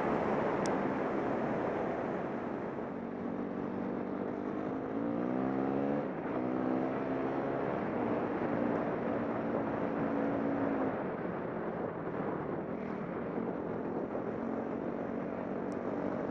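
Dirt bike engine running while riding, over a steady rush of noise. Its pitch climbs twice in quick succession about five seconds in, as with throttle and gear changes, then holds fairly steady.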